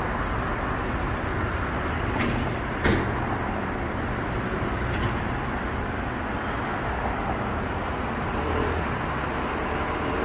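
Street traffic noise: a steady rumble of road vehicles, with a short sharp knock about three seconds in.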